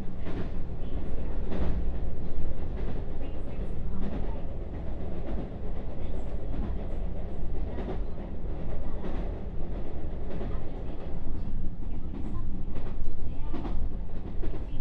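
Running noise heard inside a JR West 221 series electric train car in motion: a steady low rumble with irregular wheel clacks and knocks from the track.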